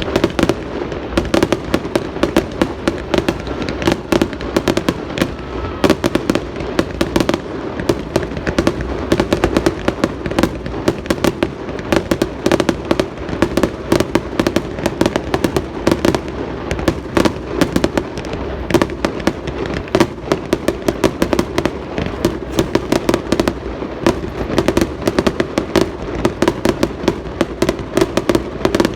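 Fireworks display: a continuous rapid crackle of sharp bangs and pops, many reports a second.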